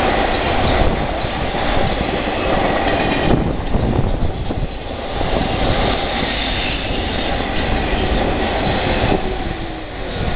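Freight train of flatcars carrying semi-trailers rolling past on the rails: a steady loud rumble and rattle, with clacks of wheels over the rail joints.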